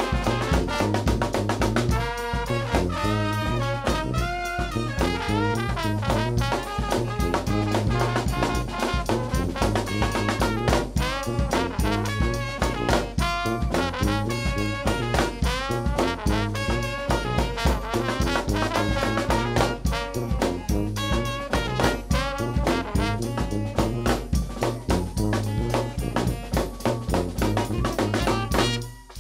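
A New Orleans brass band playing live: sousaphone bass line under trumpet, trombone and saxophone, driven by bass drum and snare. The band breaks off near the end.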